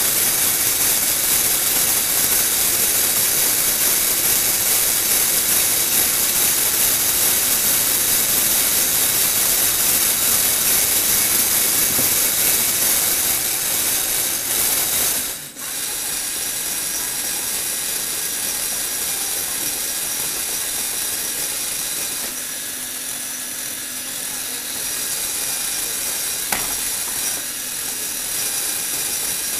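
Small electric motor and plastic gears of an RC toy car whirring steadily as its wheels spin on Lego Technic rollers. The whir dips sharply about fifteen seconds in, then runs on a little quieter, with one click near the end.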